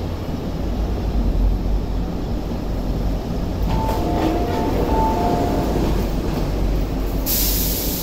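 China-built MTR Tuen Ma Line C-train electric multiple unit pulling into the platform and braking to a stop, a steady low rumble from wheels and motors. About halfway through, a short two-note tone sounds twice, and near the end a sudden loud hiss of air starts as the train halts.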